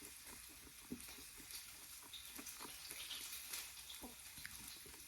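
Faint sizzling of meat frying in a pan, with soft irregular clicks and small mouth noises of someone chewing a bite of fried liver.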